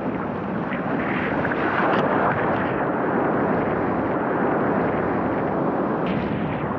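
Ocean surf rushing and washing around the microphone in the shallows, mixed with wind buffeting the microphone; the wash swells about two seconds in.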